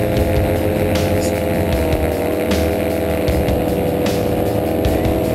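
Paramotor engine and propeller running at a steady throttle in flight, a constant drone whose pitch shifts slightly about two seconds in.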